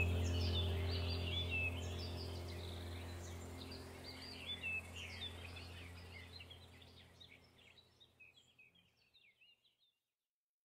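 Birds chirping and twittering over a steady low hum, the whole fading out gradually and stopping shortly before the end.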